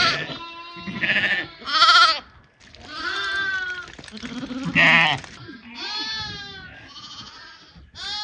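A flock of sheep and lambs bleating: about seven quavering calls one after another, some short and high, some longer and lower, from several animals.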